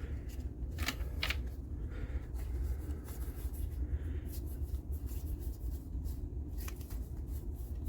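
Trading cards being handled and flipped through by hand: soft paper rustles and light clicks of card on card, a few seconds apart, over a low steady room hum.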